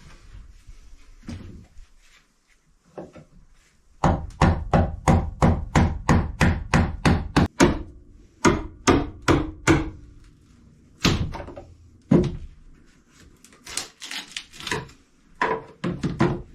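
Hammer blows on nailed wooden galley trim, knocking it loose: a fast run of sharp knocks about four seconds in, then slower groups of knocks.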